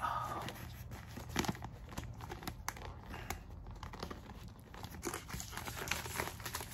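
USPS padded flat rate envelope and the plastic-wrapped pack of shipping labels crinkling and rustling as the pack is forced into the tightly filled envelope, with a steady run of irregular sharp crackles.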